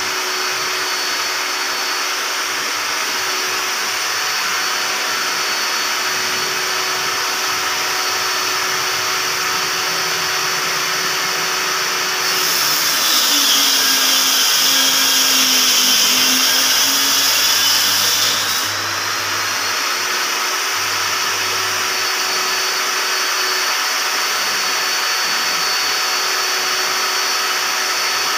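Homemade table saw, a circular saw mounted under a wooden table, running steadily with a whine. About twelve seconds in the blade cuts through a large white board: the sound turns louder and harsher and the motor drops in pitch under the load for about six seconds, then it goes back to running free.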